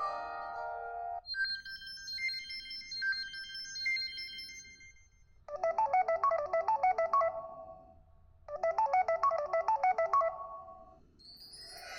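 Samsung Galaxy S4 mini ringtones played one after another: a held chord cuts off about a second in, a high chiming melody follows, then a quick run of rapid notes plays twice with a short pause between.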